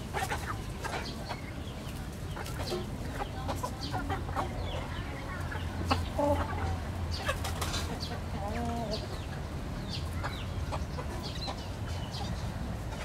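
Domestic chickens, a rooster and hens, giving a few short clucks while they peck at feed on dry dirt, with scattered light ticks and scratches from the ground.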